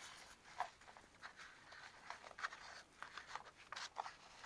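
Faint, irregular rustling and scratching of paper being handled and pressed by hand against a masked wall.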